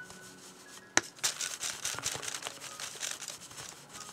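Paper and stencil rustling with small taps as a small brush dabs paint through a stencil onto a journal page, with one sharp click about a second in.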